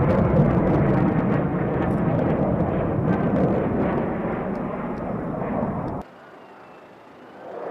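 F-35A fighter jet engine noise, loud and even, easing slightly over about six seconds. It cuts off suddenly to a faint background, which swells again near the end.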